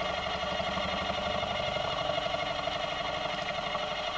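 Milling machine running steadily: a motor whine in several steady tones over a fast, even buzz.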